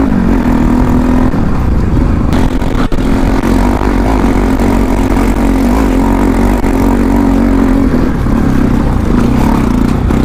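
Bajaj Pulsar NS200 single-cylinder engine running steadily as the motorcycle rides over a rough gravel track. There is a single sharp click about three seconds in.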